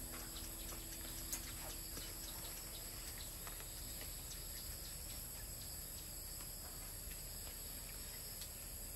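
Steady high-pitched chirring of insects in the background, with scattered light clicks and rustles from a banana leaf being rolled into a cone by hand. One sharper click about a second in.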